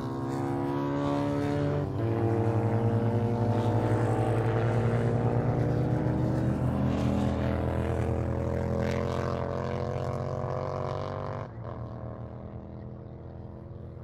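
Classic racing motorcycle engine running hard as it goes past on the circuit, its note climbing steadily, with a short break in the note about two seconds in. The sound drops off suddenly near the end and fades as the bike pulls away.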